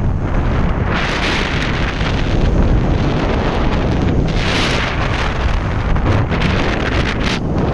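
Loud wind buffeting the microphone of a phone carried on a moving vehicle, a steady rush with gusts that swell and fade every few seconds.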